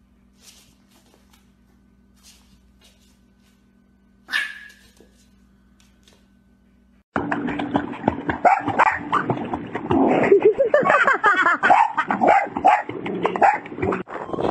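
A puppy gives one short, high yip about four seconds in. Then, from about seven seconds in, a dog barks excitedly amid loud splashing as it thrashes in a swimming pool.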